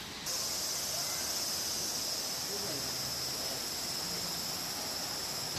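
Cicadas buzzing in one steady, high-pitched chorus, which starts abruptly about a quarter of a second in.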